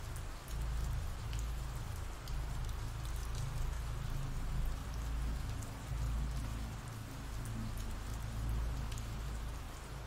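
Steady rain falling: a constant hiss with scattered drop ticks over a low rumble.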